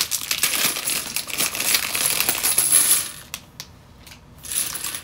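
Small LEGO tiles and plates clattering onto a table as they are tipped out of a crinkling plastic parts bag, a dense rattle for about three seconds, then a few scattered clicks.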